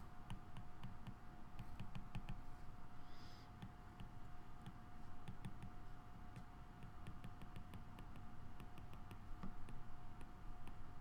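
Stylus tip tapping and ticking on a tablet's glass screen while handwriting, a run of light, irregular clicks. A faint steady hum runs underneath.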